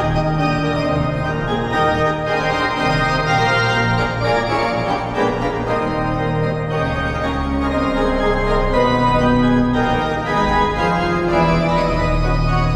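Goal celebration music with an organ-like sound: sustained chords over a steady bass and a moving melody, the chords changing a few times.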